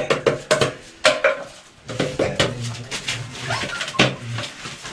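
Plastic water bottle crackling and clicking as it is handled and knocked about on a newspaper-covered floor, nosed at by Rottweiler puppies: a run of sharp, irregular clicks and crinkles.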